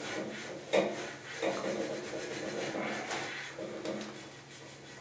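A cloth rag rubbed back and forth along the metal print arm of a manual rotary screen printing press, wiping it down with paint thinner. There is a short knock just under a second in, and the rubbing fades toward the end.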